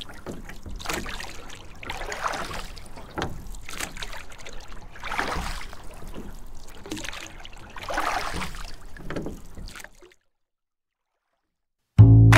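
Water sloshing and splashing in repeated swells about every one to two seconds, like strokes through water; it stops, and after a couple of seconds of silence loud music with a beat starts near the end.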